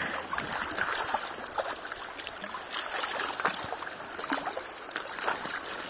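Shallow river water flowing and trickling over a rocky bed, with many small splashes scattered through it.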